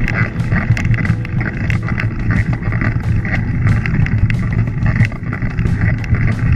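Mountain bike climbing slowly over a rocky dirt track: the tyres crunch over loose stones and the bike rattles, giving a dense run of small clicks over a steady low rumble.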